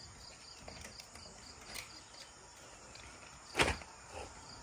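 Insects chirping in a steady, high, even rhythm, about three pulses a second, over a faint background, with a single sharp knock about three and a half seconds in.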